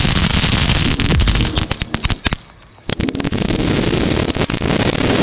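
Thousands of pop-pop snappers (bang snaps) going off as they hit the ground, a dense rapid crackle of small sharp pops like machine-gun fire. The pops thin to a brief lull about two and a half seconds in, then pack in again.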